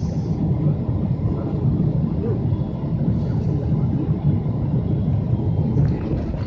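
Jet airliner cabin noise while taxiing: a steady low rumble of the engines and airframe heard from inside the cabin.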